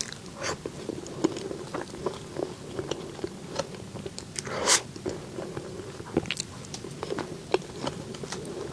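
Close-miked eating sounds: a person biting and chewing desserts, with many small clicks of the mouth and food throughout and one louder crunch about four and a half seconds in.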